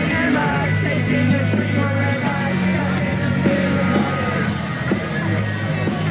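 Live rock music played loud through a stage PA, heard from inside the crowd, with people yelling and singing along close by.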